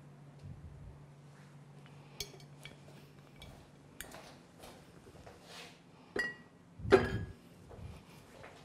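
Glassware clinking and knocking on a wooden worktop: a glass oil bottle and a small glass bowl. A few sharp clinks, one ringing briefly, then a louder knock about seven seconds in, over a low steady hum.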